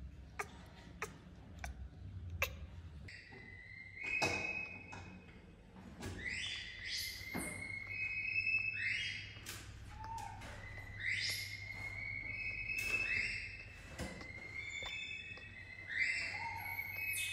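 Newborn baby macaque crying: a run of high-pitched, whistle-like squeals, each swooping up and then held for a moment, repeating every second or so from about three seconds in. A few faint clicks come before the calls.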